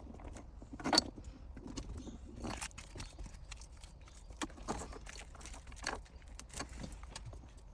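Irregular clicks and knocks of plastic parts being handled and pressed as a shift-knob collar is forced onto the shifter, with one sharper knock about a second in.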